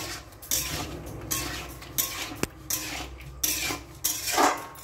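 A stirring utensil scraping and knocking against a cooking pan, a string of strokes one or two a second, as steamed potatoes are stirred into a thick coriander-yogurt paste.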